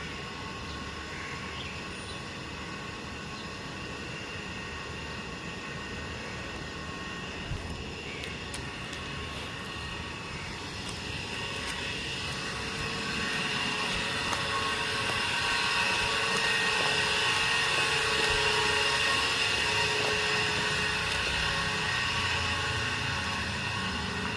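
A steady drone made of several held tones over a noisy rumble, growing louder from about halfway through and easing off near the end.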